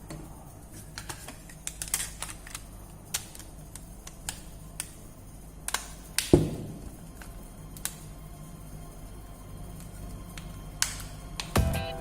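Small hard parts and hand tools clicking and tapping at irregular intervals, with one louder knock about six seconds in.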